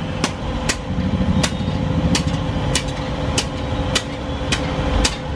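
Hammer striking metal in a steady rhythm, about nine sharp blows in five seconds, over a steady low hum and rumble of machinery.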